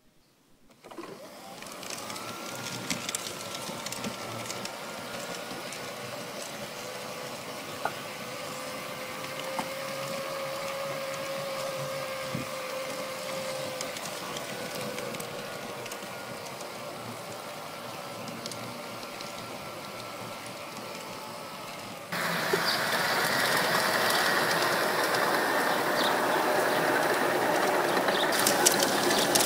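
G scale model train running on garden-railway track, with a steady motor and gear whine over the light clicking of wheels on rail joints. About three-quarters of the way through the sound changes abruptly to a louder, noisier running of model wagons rolling along the track.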